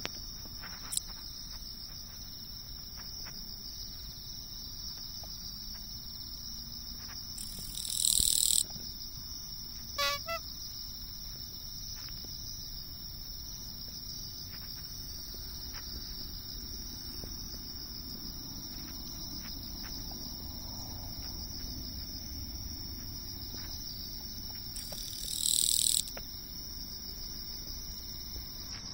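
Japanese katydid (Nishi-kirigirisu, Gampsocleis buergeri) singing its harsh buzzing 'gii' twice, each buzz about a second long, about 8 s and 25 s in, with a long gap between. A short double note follows about two seconds after the first buzz. A steady high trill of other insects runs underneath.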